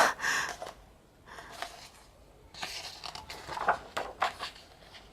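Pages of a large photo book being turned by hand: a few short paper swishes and rustles, each lasting a moment, with quiet between.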